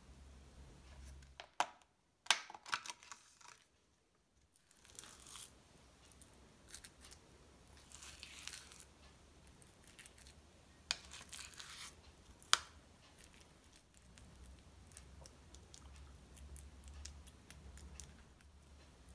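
A metal spoon scooping hummus out of a plastic tub and scraping it into a square ceramic bowl: soft scrapes with a few sharp clicks as the spoon knocks the bowl and the tub. The plastic tub crinkles as it is handled near the start.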